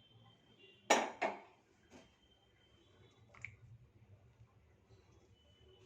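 Kitchen vessels and utensils clinking: two sharp clinks close together about a second in, then a few lighter taps. A low steady hum runs underneath.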